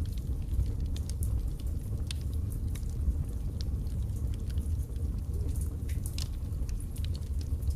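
Birch logs burning in a fireplace: frequent small, irregular crackles and pops over a steady low rumble of the flames.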